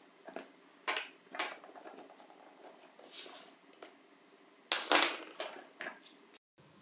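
Plastic clamshell housing of an old National EZ7410 cordless screwdriver being pried apart by hand: a series of short plastic clicks and scrapes, the loudest cluster about five seconds in.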